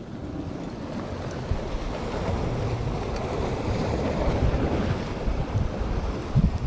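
Sea waves washing, with wind buffeting the microphone in gusty low rumbles.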